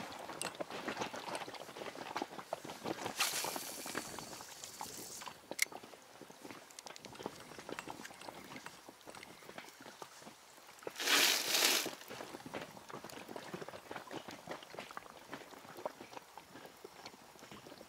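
Small waves lapping and splashing against the side of an inflatable boat, with a louder rush of splashing about three seconds in and another, louder one about eleven seconds in.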